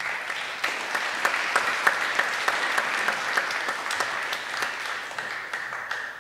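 Audience applauding: many hands clapping, starting at once and tapering off near the end.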